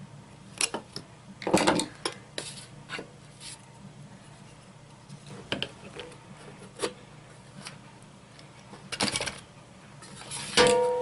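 Small metal rock-tumbler parts such as shafts, bearings and retaining clips being handled and fitted by hand. Scattered clicks and clinks, with a clattering scrape about a second and a half in and another about nine seconds in, and a short metallic ring near the end.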